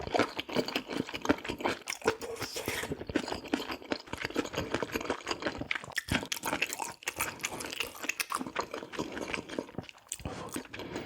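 Close-miked mukbang eating sounds: a person chewing food with a steady run of crunching and wet mouth clicks.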